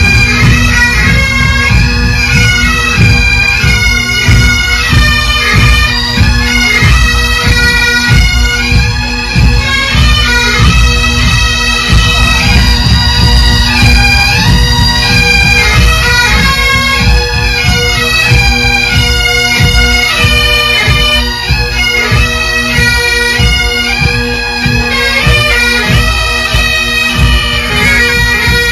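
Massed Highland pipe band playing while marching past, close up: a steady bagpipe drone under the chanter melody, with drumbeats beneath.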